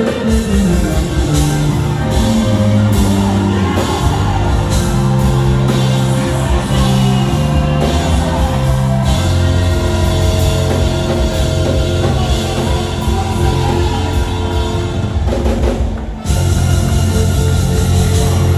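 Live band music led by a drum kit played hard, with cymbal crashes, over a held, stepping bass line. The music drops out for a moment about sixteen seconds in, then comes back.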